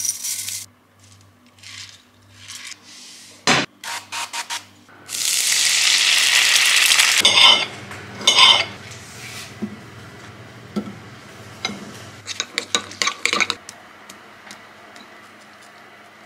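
Breakfast being prepared: clinks and scrapes of dishes and cutlery and stirring, with a loud rushing hiss for about two seconds a few seconds in and a run of quick clatters near the end.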